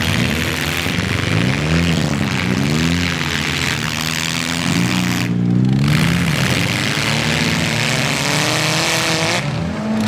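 Four-cylinder demolition derby car engines revving up and down over and over, with a steady hiss of noise behind them.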